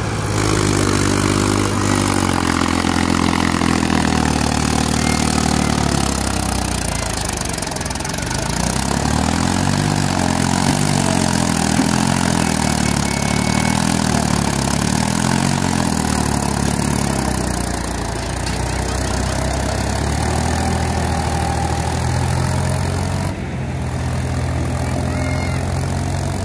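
Sonalika DI 750 tractor's diesel engine running under load as it hauls a trolley heaped with soil through rough, muddy ground. Its pitch rises and falls several times in the middle as the engine speed changes.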